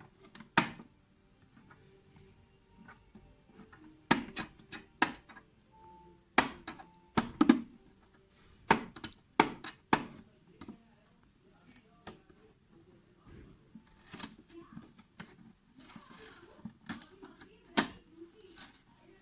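Irregular sharp clicks and knocks of hard plastic parts and packaging being handled while unsealing a new coffee machine, with a few brief rustles of packaging.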